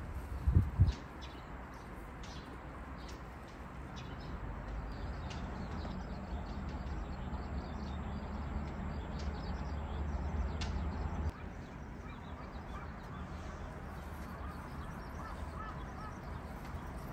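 Birds calling, short chirps scattered through, over a low steady rumble that drops off suddenly about eleven seconds in. A brief loud low knock sounds about half a second in.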